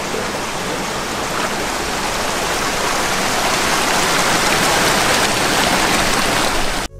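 River water rushing over rocks, a steady loud rush that cuts off suddenly near the end.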